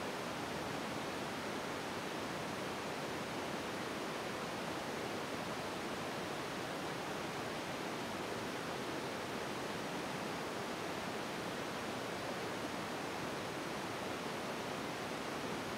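Steady, even hiss of background noise, with no taps, clicks or other distinct sounds.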